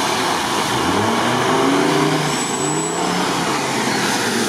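Off-road 4x4 engines revving hard as the vehicles accelerate through deep mud, the pitch rising in several sweeps, over a steady noisy rush.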